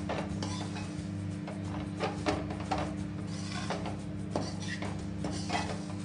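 A steel spoon scraping and clinking against an aluminium kadhai as wheat flour roasting in ghee is stirred, in irregular strokes. Under it runs a steady low hum from a microwave oven at work.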